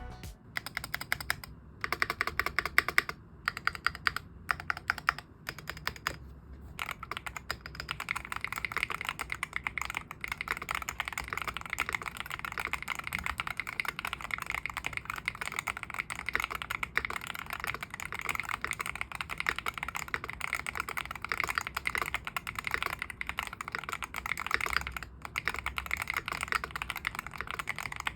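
Typing on an O-ring-mounted Venom 60HE keyboard, a 60% board with Hall-effect magnetic switches: short bursts of keystrokes with brief pauses for the first several seconds, then fast continuous typing.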